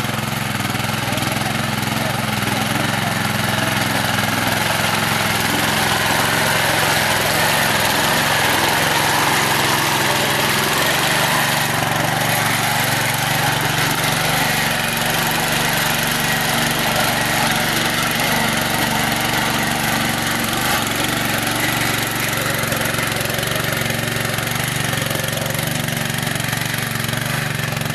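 Small engine of a walk-behind rotary tiller running steadily under load as it tills wet mud, with an even low hum.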